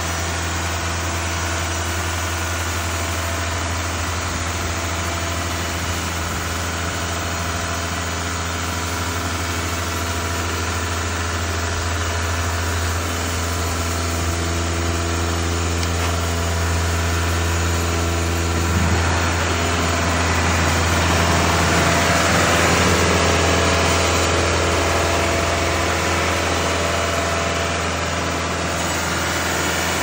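Cook's AC-3667T portable bandsaw sawmill running steadily as its blade saws a board off an oak log. The sound swells louder for a few seconds past the middle.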